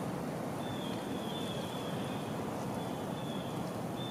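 Steady outdoor woodland ambience: a low, even rush of wind, with faint thin high whistles that come and go.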